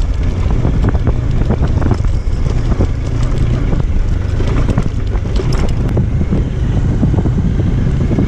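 Motorcycle riding over a rough off-road track, its engine running steadily under wind buffeting on the microphone, with scattered knocks from the bumpy ground.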